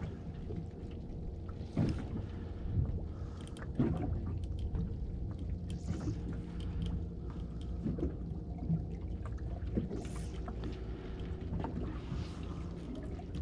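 Spinning rod swept again and again, about every second or two, to fan line off the reel and speed a 1.5-ounce jig down to the bottom; each swipe is a brief soft rush or tap. Under it runs a steady low boat hum with water against the hull.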